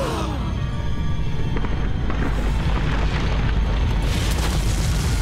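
Cartoon demolition sound effect of a brick chimney brought down by explosive charges: a loud, steady, deep rumble of collapsing masonry, with music playing over it.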